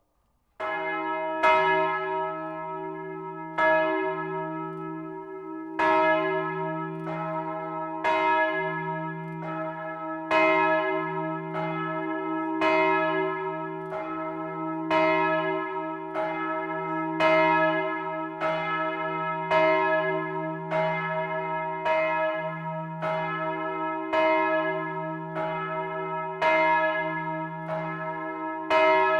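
Church bells ringing. They start suddenly about half a second in and strike again roughly once a second over a steady low hum.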